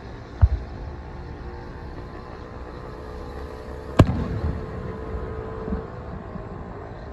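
Fireworks shells bursting overhead: one boom about half a second in, then a louder boom near the middle that trails off in a short rumble. A steady low hum runs underneath.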